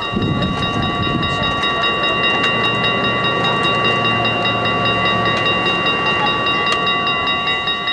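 Dutch automatic level-crossing warning bells ringing rapidly and without a break as the crossing closes and the barrier arms lower, a sign that a train is on its way. A low hum runs under the ringing through the middle of the stretch.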